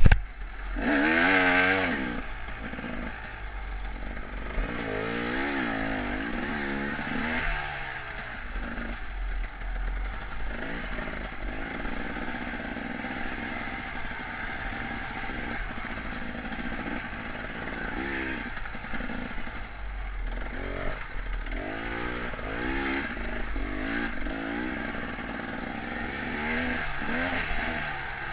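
KTM dirt bike engine being ridden off-road, its pitch rising and falling over and over as the throttle is opened and closed, with a hard rev about a second in.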